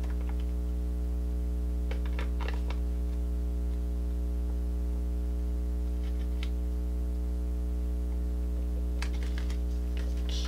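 A clear silicone skin pad being handled and its plastic film peeled: light crackling clicks in a few short clusters, about two seconds in, around six seconds in and again near the end. They sit over a steady low electrical hum.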